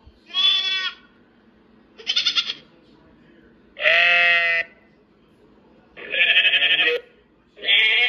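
Recorded goat bleats played back one after another from an animal-sounds app on a tablet: four separate bleats about two seconds apart, some with a rapid quaver, and a fifth starting near the end.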